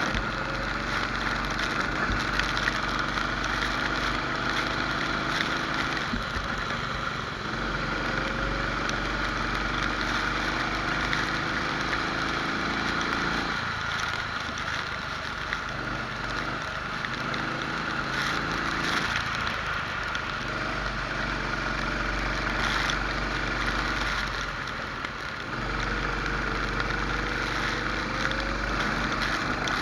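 Rental kart engine heard onboard, its pitch repeatedly falling and rising again as the kart slows and accelerates through corners, over wind and wet-track spray noise.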